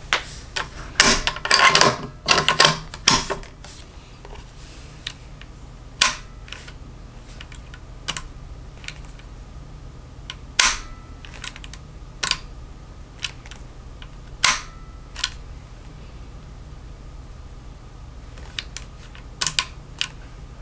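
Tang safety of a Browning X-Bolt rifle fitted with a Timney trigger being pushed back and forth: a quick run of clicks and clacks in the first few seconds, then single sharp clicks every second or two as it snaps between positions. The safety is working freely now that the stock has been trimmed so it no longer binds.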